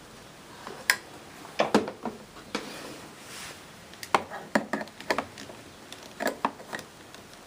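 Irregular clicks and knocks of hard plastic parts of a bagless vacuum cleaner being handled, with the motor off. The knocks come in several short clusters.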